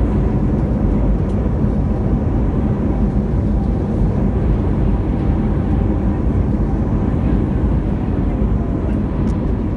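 Loud, steady rumble inside the cabin of an Airbus A320neo around touchdown and the landing roll.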